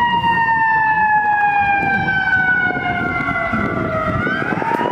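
Fire truck siren wailing: its pitch falls slowly for about four seconds, then starts to rise again near the end, with a low rumble underneath.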